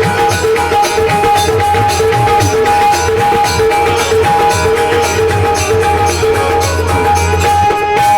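Live folk band playing an instrumental passage, with no singing: a quick, steady drum beat under held melodic notes.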